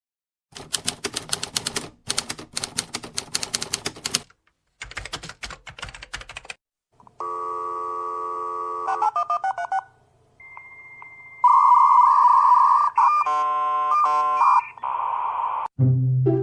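A run of separate sound effects: rapid clattering clicks like typewriter keys for about six seconds, then electronic telephone-style tones, a steady tone followed by patterned beeps and a ringing tone.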